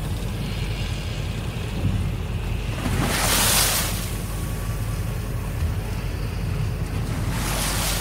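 Water slapping against a tugboat's hull, with the loudest splash about three seconds in and another near the end, over a steady low rumble.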